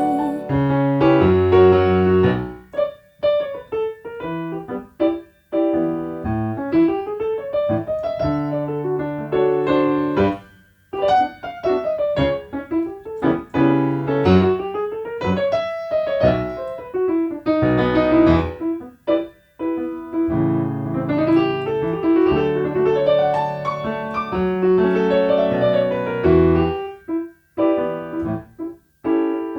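Piano playing an instrumental break: chords and low bass notes under a moving melodic line, with a few short pauses between phrases.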